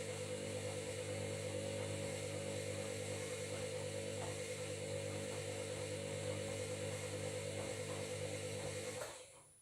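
Washing machine running at a constant speed: a steady motor hum and whine with unchanging pitch, cutting off abruptly about nine seconds in.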